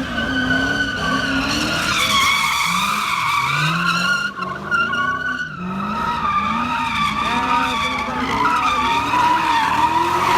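Car tyres squealing in a long skid while the engine revs up and down over and over. The squeal eases briefly a little before the middle.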